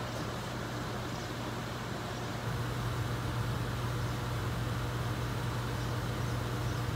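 A steady low mechanical hum with an even rushing noise, a little louder from about two and a half seconds in.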